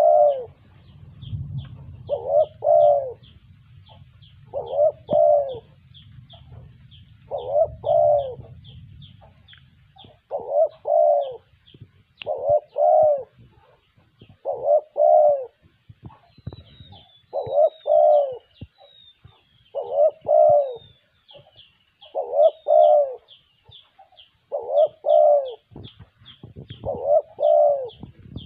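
Spotted dove cooing: a short phrase of two or three low coos, repeated about every two and a half seconds. A small bird chirps steadily in quick, thin, high notes over it, and a low rumble underlies the first ten seconds.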